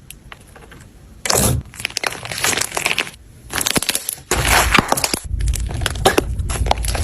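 Slime being squeezed and pressed by hand, giving off dense runs of small crackles and pops in bursts. The crackling starts about a second in, and the last bursts carry a low, dull squishing underneath.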